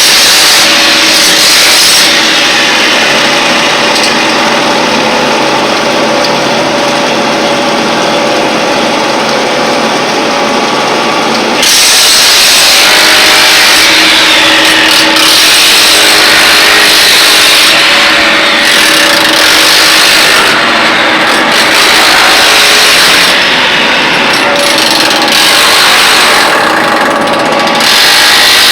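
An electric power tool running continuously under load, loud and steady. About twelve seconds in the sound shifts and grows louder, and after that it swells and eases every couple of seconds.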